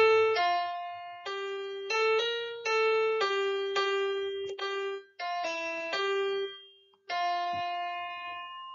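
Instrumental keyboard music: a simple melody of short, steady notes, ending on a long held note that slowly fades.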